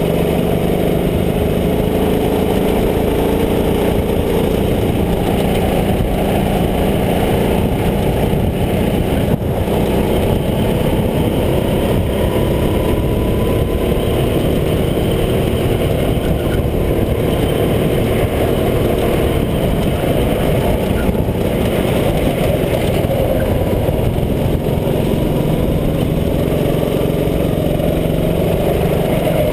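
Kart engine running at racing speed, heard from a camera on the kart itself, its pitch gently rising and falling as the throttle is worked through the corners.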